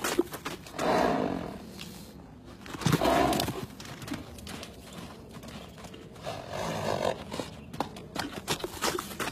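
Arabian horse moving loose in a sand pen: hooves thud in the sand, and the horse makes three loud, rough sounds, about a second in, around three seconds, and again near seven seconds.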